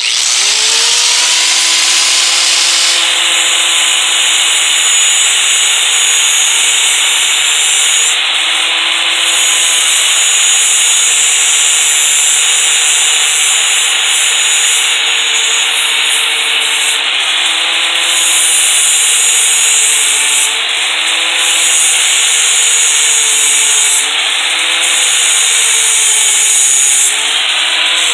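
Electric grinder grinding on a saw-chain drive link. It starts suddenly, its motor pitch dips and recovers each time it bears on the metal, and it winds down near the end.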